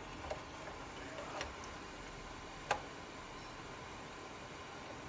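A few light clicks and taps from hands and tools working on an opened amplifier. There are three faint ticks, the sharpest a little past halfway, over a low steady background.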